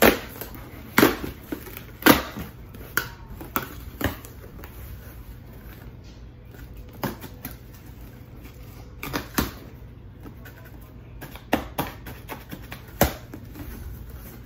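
A cardboard box and its packaging being handled and pulled open by hand: irregular sharp knocks and clicks, about a dozen in all, with a lull of a few seconds in the middle.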